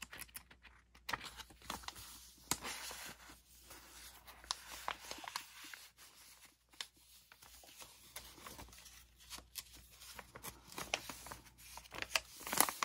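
Paper pages and cards of a handmade junk journal rustling and flapping as they are turned by hand, with scattered short taps.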